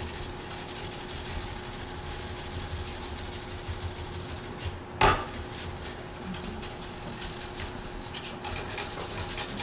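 Hand scrubbing a soldered brass sheet with an abrasive, a fast steady scratchy rubbing, to clean excess solder off the seam. A single sharp knock about five seconds in.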